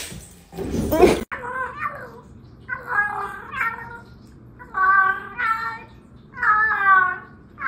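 A pop-up toaster ejecting with a sudden clack, followed by about a second of noise. Then a series of about seven short, pitched calls, each under a second, with gaps between them.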